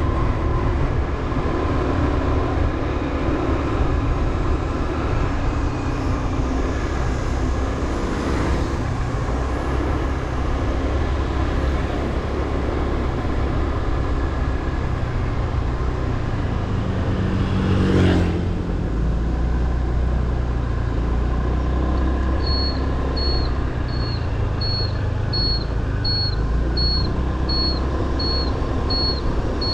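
Motorbike riding along a road: steady engine and wind rumble. About 18 seconds in a louder vehicle sound swells briefly, and from about 22 seconds short high beeps repeat about one and a half times a second.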